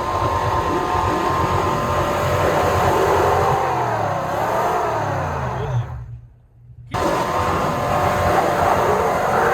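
A 4x4's engine revving hard under load on a trail climb, its pitch rising and falling with the throttle. The sound drops out for about a second past the middle, then picks up again.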